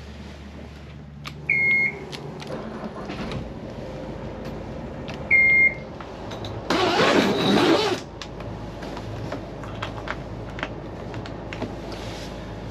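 Catamaran's twin diesel engines being started at the helm: the engine panel gives two short high beeps a few seconds apart, a loud burst of cranking comes a little past halfway, and the engines then run steadily at idle.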